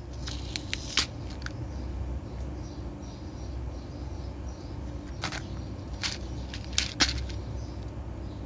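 Plastic blister packs of fishing tackle being handled: a few short, sharp clicks and crinkles of the plastic packaging, over a steady low background hum.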